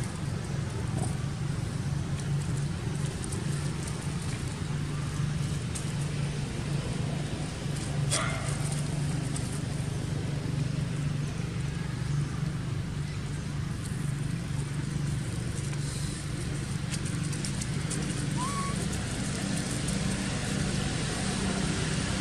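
Steady low rumble throughout, with two short high calls, one about eight seconds in and a brief rising chirp about eighteen seconds in.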